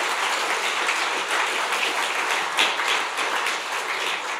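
Audience applauding: a dense, steady round of many hands clapping.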